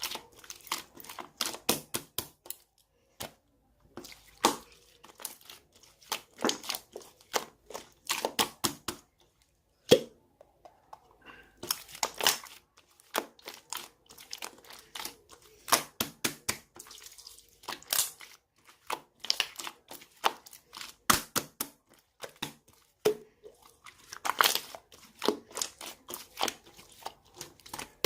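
Irregular clusters of sharp clicks and crinkling, like small things being handled close by, with short pauses between clusters.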